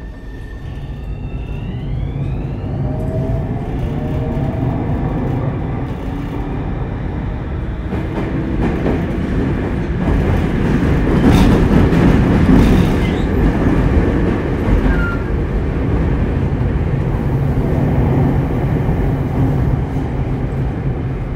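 Tobu 30000 series electric train pulling away: the Hitachi IGBT-VVVF inverter and traction motors give several tones rising together in pitch over the first few seconds. Then the steady rumble of wheels on rail builds and is loudest about halfway through.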